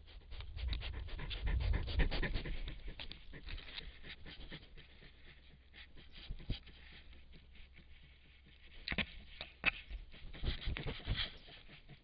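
Porcupine snuffling and sniffing right at the microphone, with bumps and scrapes as it noses and brushes against the camera; a heavy low thump about a second or two in, and sharper knocks near the end.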